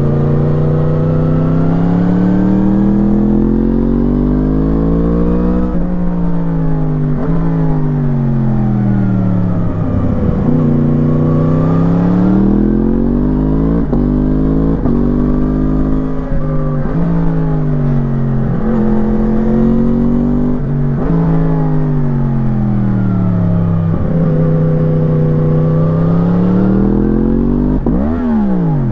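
2017 Yamaha MT-10's crossplane inline-four through an Akrapovič slip-on exhaust, under hard riding: it accelerates through the gears and rolls off for corners, the pitch climbing and falling again and again, with sudden breaks at each gear change.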